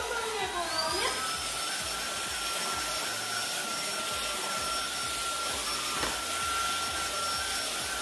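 Samsung Jet cordless stick vacuum running steadily while it picks up flour from a rug. About a second in, its motor whine rises in pitch and then holds steady, as the vacuum steps up from power mode to its strongest mode.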